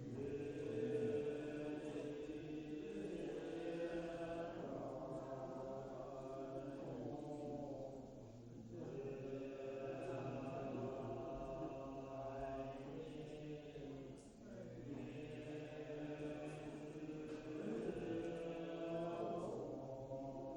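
Voices chanting in long, held phrases on steady pitches, with three short pauses between phrases.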